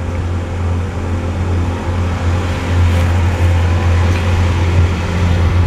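Amphibious car's engine running steadily at low speed on the water, a constant low drone heard from inside the cabin.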